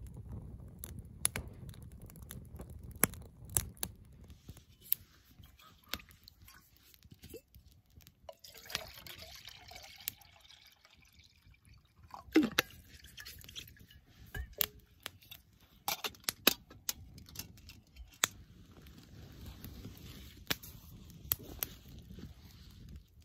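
Wood campfire crackling, with sharp pops and clicks scattered throughout. Midway through, water is poured from a stainless steel bottle into a metal camp pot, and there is a loud sudden knock at about the same time.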